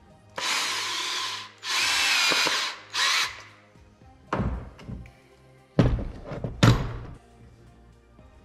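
Power drill running in three short bursts, likely a cordless drill with a step bit. It is followed by several heavy knocks and thumps about four to seven seconds in.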